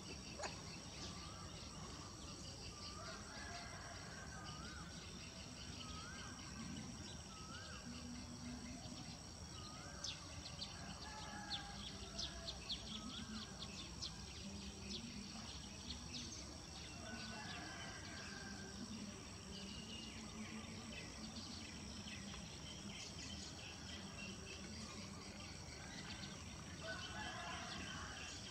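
Steady, high-pitched drone of insects, crickets or cicadas, with a run of short chirps that rise and fall in pitch during the first several seconds and a few faint ticks around the middle.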